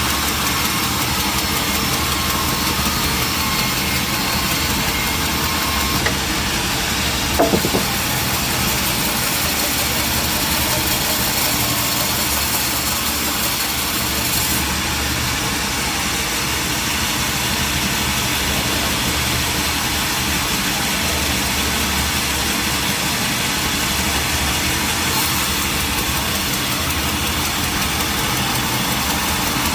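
Sawmill machinery running steadily with an engine-like hum, with a brief knock about seven seconds in.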